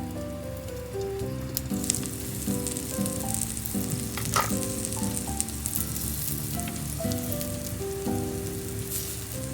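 Food sizzling in a hot frying pan, the sizzle getting louder about a second and a half in, with a short scrape or clink around the middle, over background music.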